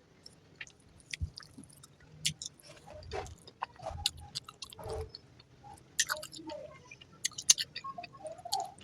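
Close-miked chewing of a mouthful of veg fried rice and egg curry: irregular wet smacks and lip clicks.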